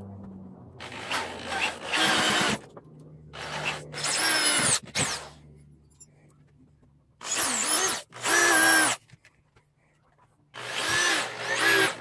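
Power drill driving screws into a thick wooden timber, in four runs of about two seconds each, the motor whine shifting in pitch as each screw goes in.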